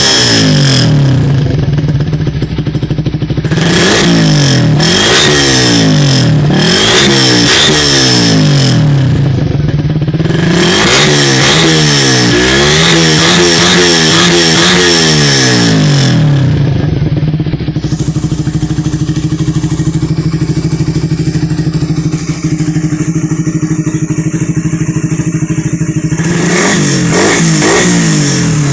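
Suzuki Raider R150 Fi single-cylinder engine, run through a stock carb-model canister muffler on a 51 mm big elbow header, revved in repeated quick blips for about sixteen seconds. It then idles steadily for about ten seconds and revs up again near the end.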